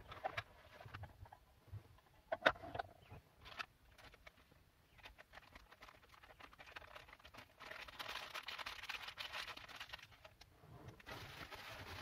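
Light knocks of hard kitchen items being set down on a wooden cutting board, the loudest about two and a half seconds in. Then a dry, pattering rustle of a small sachet being handled and its white granules poured into a small plastic cup, lasting a couple of seconds and starting again near the end.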